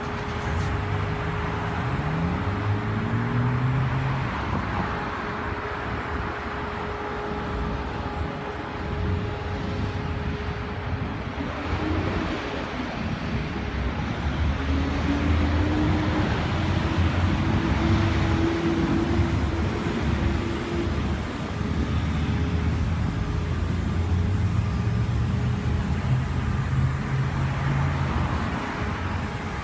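Motor engines running, with their pitch rising as they rev or pick up speed, over a steady drone and a background rumble.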